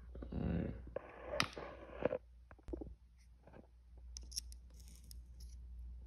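Faint handling of small toy motor parts on a workbench: rustling and light clicks, with a brief soft crackle about four seconds in as a soldering iron touches the motor terminal.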